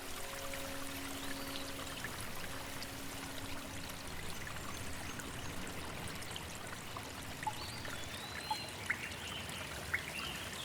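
A stream of water flowing and trickling steadily, with the last held notes of soft ambient music dying away in the first few seconds. Short high chirping calls come in near the end.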